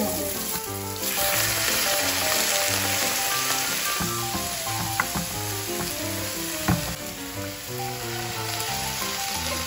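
Chopped vegetables frying in olive oil in a pan, a steady sizzle with a couple of light utensil taps against the pan. Background music with a repeating bass line plays throughout.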